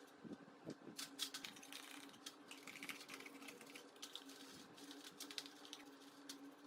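Faint, irregular light clicks and taps from small hard parts being handled, over a steady low hum.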